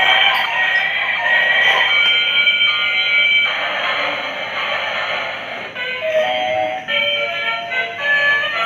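Music: a high, tinny electronic melody of quick changing notes, starting abruptly.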